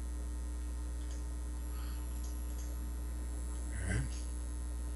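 Steady low electrical mains hum on the recording, with a brief faint noise about four seconds in.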